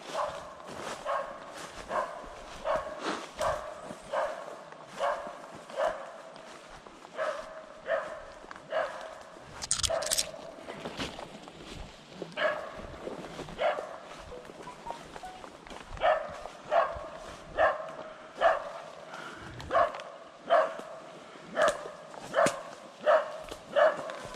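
Beagle barking steadily at a rabbit that has gone to ground in a hole, short barks about one or two a second, with footsteps through dry leaf litter.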